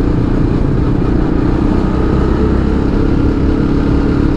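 Motorcycle engine running at a steady speed while riding, a constant hum over a low rumble.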